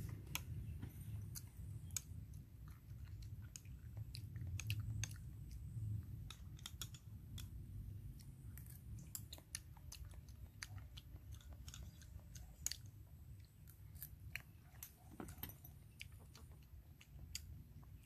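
A person chewing mouthfuls of blood cockle porridge close to the microphone, with many small, irregular sharp clicks, over a low steady rumble.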